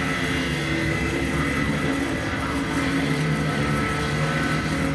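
Film soundtrack heard through cinema speakers: a loud, steady, engine-like drone.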